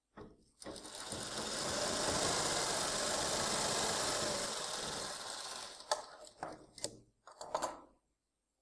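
Sewing machine stitching through fabric, running steadily for about five seconds, then a few short bursts of stitching before it stops.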